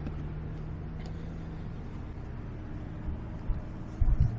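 Steady low outdoor rumble with a faint hum, then a few dull, loud thumps about four seconds in as a landing net is lifted and knocked against the boat.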